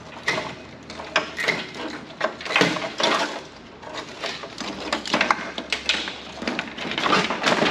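Irregular clacks, rattles and rasps as ribbon cables and their connectors are tugged and worked loose from an old Nortel PBX telecom cabinet. There is a longer rasping stretch about a third of the way in and another at the end.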